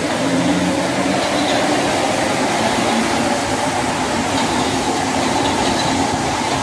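Rubber-tyred Mexico City Metro train running past along an underground station platform: a steady loud rush of the moving cars with a held motor-like tone under it.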